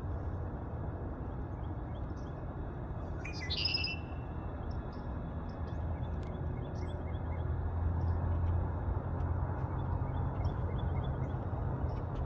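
Red-winged blackbird song: one clear call about three seconds in, with short faint chirps from other birds throughout. Under the birds runs a steady low rumble.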